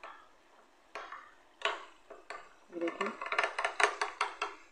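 Metal spoon beating gram flour (besan) batter in a glass bowl, clinking against the glass to break up lumps: a few single taps at first, then a quick run of clinks, several a second, through the second half.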